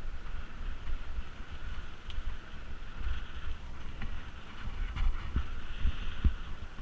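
Mountain bike being ridden off-road: wind buffets the camera microphone over the rumble of the tyres on a rough track, with several short knocks from bumps.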